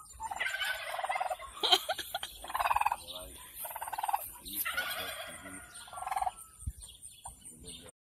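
A turkey gobbling, about six quick rattling gobbles in a row over the first six seconds.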